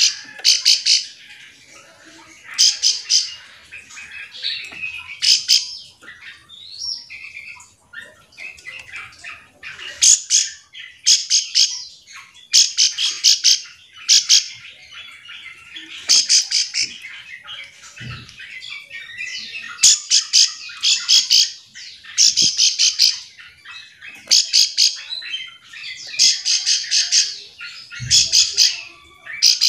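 Ciblek sawah (a prinia) calling: short bursts of rapid, scratchy, ticking notes, repeated every second or two. This is the lure call used to set other ciblek calling in reply.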